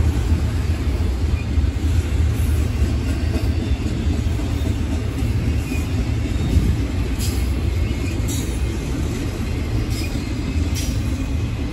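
Double-stack intermodal container freight train rolling past, a steady low rumble of wheels on rail with a few light clicks in the second half.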